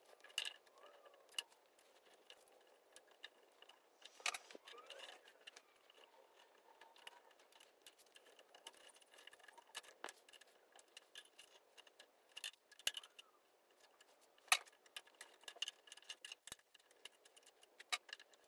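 Faint, scattered metallic clicks and ticks of hand tools working a metal crimp onto a steel-wire lawnmower clutch cable: a crimping tool, then needle-nose pliers squeezing the crimp. A few sharper clicks stand out among them.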